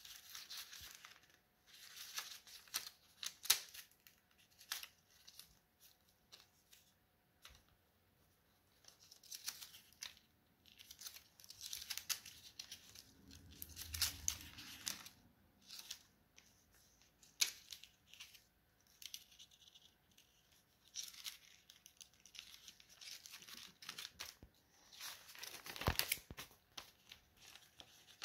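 Paper rustling and crinkling in irregular short bursts as notebook pages are turned and paper foldable flaps are lifted and folded, with a few sharper clicks.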